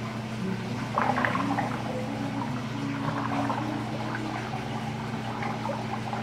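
Water pouring and gurgling into the chamber of a model lift lock, with a splashier surge about a second in, over a steady hum from the pump that drives the flow.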